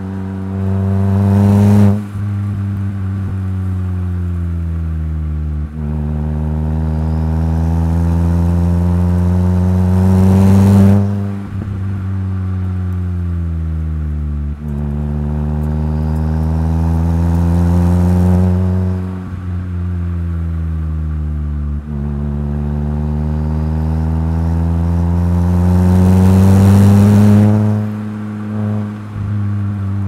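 Mitsubishi Colt CZT's 1.5-litre turbocharged four-cylinder engine and exhaust pulling up through the revs four times under hard acceleration. Each pull ends in a sudden lift-off with a short rush of noise, and the revs then fall away slowly on the overrun before the next pull.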